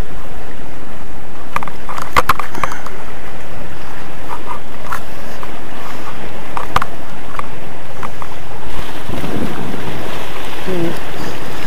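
Steady rush of wind and sea surf washing against rocks on an action camera's microphone, broken by a few sharp knocks.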